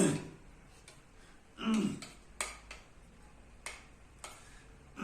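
A person's short throat-clearing sounds, a vocal tic: one right at the start and another a little under two seconds in, each falling in pitch. A few sharp clicks follow later.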